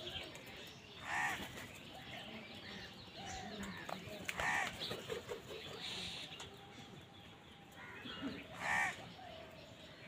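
House crows cawing: three loud, harsh caws spaced a few seconds apart, with fainter calls and small clicks in between.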